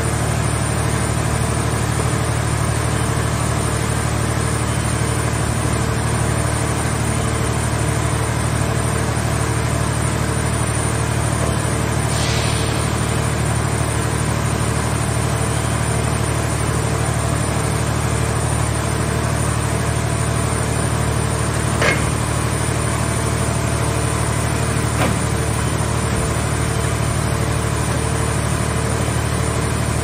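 Hydraulic power unit of a scrap car baler running steadily while its grab arm is worked, a constant low hum. A brief hiss about twelve seconds in and two short knocks in the last third.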